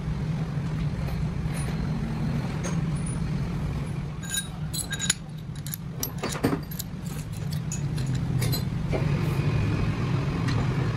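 Steady low hum of running workshop machinery, with a cluster of light metallic clinks and taps from steel machined parts being handled and fitted together, about four to seven seconds in.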